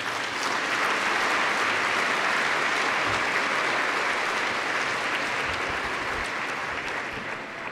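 Large audience applauding steadily, swelling up at the start and slowly fading near the end.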